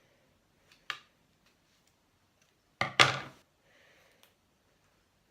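Handling noises from a small doll and its accessories: a sharp click about a second in, then a louder clatter about three seconds in.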